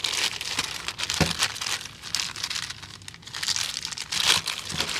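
Thin clear plastic bag crinkling and rustling in the hands as a toy part is worked out of it, in irregular bursts, with one short knock about a second in.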